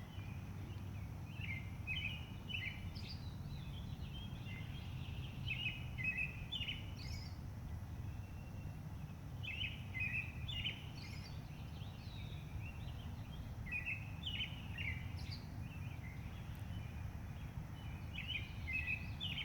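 A songbird singing outdoors: short phrases of quick chirps, repeated about every four seconds, over a steady low background rumble.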